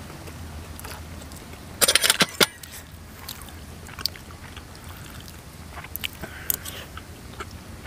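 Eating sounds at a meal: chewing and a metal spoon clicking against a ceramic bowl, with a quick run of sharp clicks about two seconds in and single clicks later, over a low steady hum.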